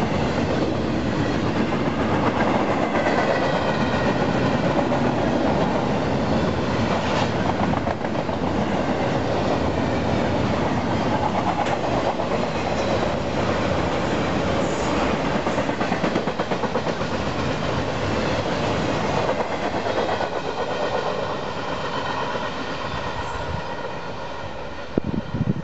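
Double-stack container train's well cars rolling past at track side: a steady rumble of steel wheels on rail, with wheels clicking over the rails. It gets a little quieter over the last few seconds.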